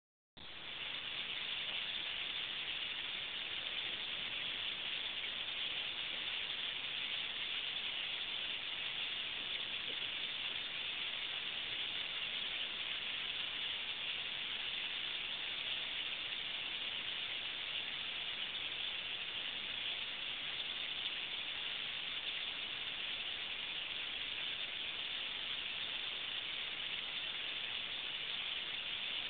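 A huge roosting flock of bramblings calling all at once, countless calls blended into one steady, high, hiss-like din.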